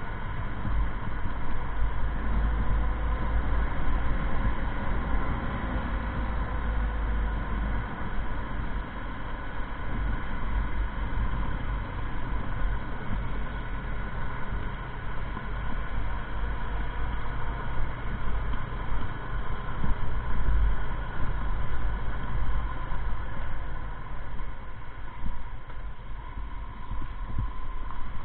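Motorcycle riding along at road speed: a steady engine note rising and falling a little with the throttle, under heavy wind rumble buffeting the microphone.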